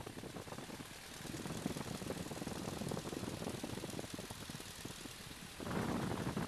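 A de Havilland Tiger Moth's four-cylinder inline engine running at low taxiing power, a rapid, uneven chug of firing strokes. It gets briefly louder about five and a half seconds in.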